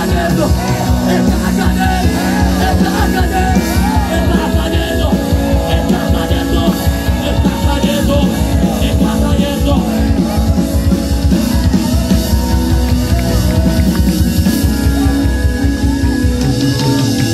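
Live worship band playing loudly over a stage PA: drums keeping a steady beat, with electric guitar and keyboard.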